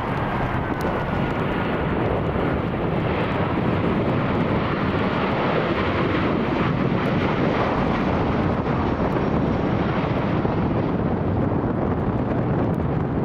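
Ryanair Boeing 737 jet engines running, a steady loud noise, with wind buffeting the microphone.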